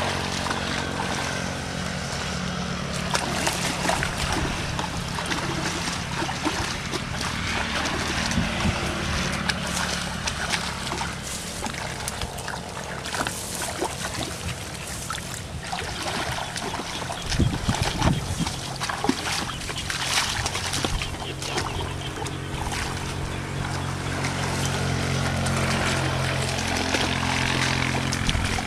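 Muddy water splashing and sloshing as a person wades and gropes by hand for fish, with a cluster of sharper splashes about two-thirds of the way through. A steady low drone runs underneath.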